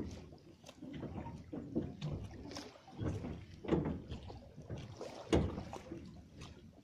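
A gill net being hauled hand over hand across the bow of a small metal boat: wet rustling and splashing, with irregular knocks against the hull, two louder ones past the middle.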